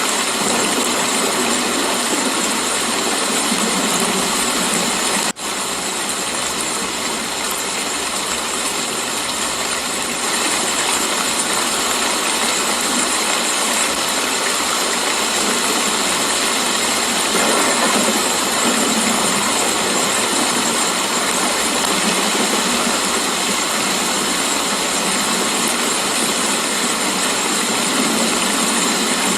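Steady rain falling, an even hiss of many drops, with a momentary drop-out about five seconds in.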